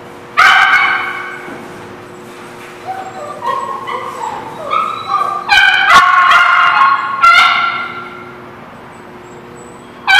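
Dogs barking and yipping. A loud bark comes about half a second in, then a quick run of shorter yips that builds to loud barks around six to seven seconds, and another bark comes near the end.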